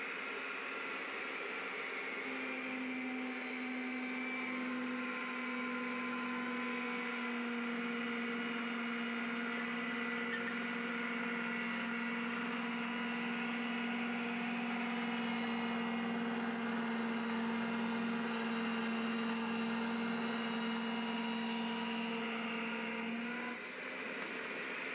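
RIDGID power pipe threader running while its die head cuts a thread on a pipe, a steady motor-and-gear hum. A tone sets in about two seconds in and stops shortly before the end.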